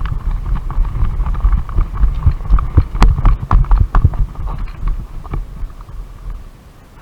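Irregular heavy low thumps with sharp clicks mixed in, busiest about two to four seconds in and dying down near the end.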